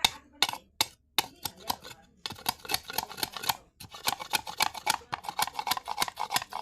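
A knife or blade cutting bamboo in quick, sharp strokes. A few separate cuts come first, then a fast run of about five or six strokes a second, with a short break a little past halfway.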